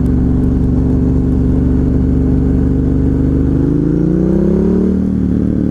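Ducati Hypermotard 1100S's air-cooled L-twin engine running steadily at low speed, then rising in pitch as the bike accelerates about three and a half seconds in, and dropping to a lower steady note near the end.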